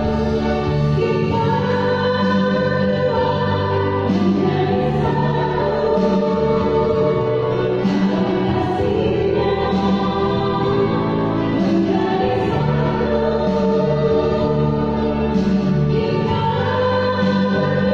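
Choir singing a sacred piece with sustained, slowly changing chords and a low bass line.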